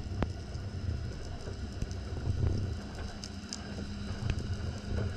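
Muffled underwater noise picked up by a GoPro in its waterproof housing: a steady low rumble with scattered sharp clicks.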